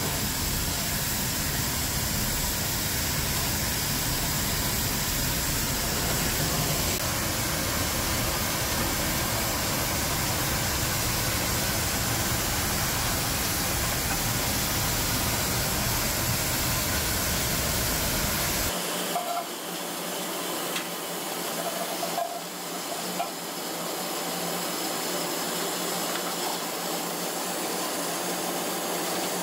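Oxy-fuel cutting torch on a track-mounted cutting carriage hissing steadily as it flame-cuts the edge of a steel plate. The low rumble under the hiss drops away about two-thirds of the way through.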